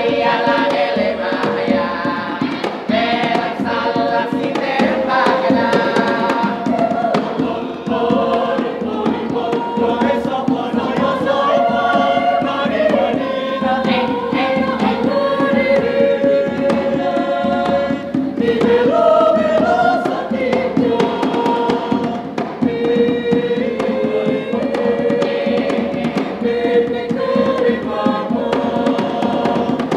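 Mixed choir singing a choral arrangement of a traditional Makassar song in several voice parts, with held, chant-like notes. Short percussive hits sound through the singing.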